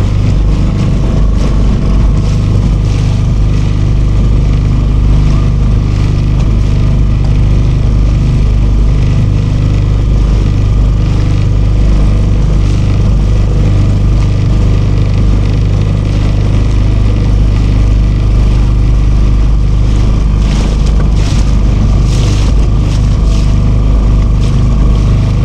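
Small hire motorboat's outboard engine running steadily at a constant pitch, heard close up.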